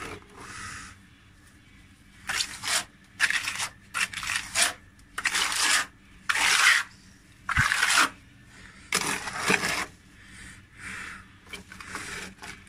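Wet cement plaster being spread and scraped onto a cracked concrete wall: a run of about eight short scraping strokes from about two seconds in, fading to a fainter one near the end, as the cracks are filled and smoothed.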